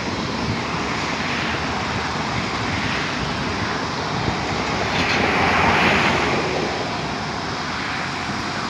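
Wind rushing and buffeting the microphone ahead of a thunderstorm's shelf cloud, with a louder gust about five seconds in.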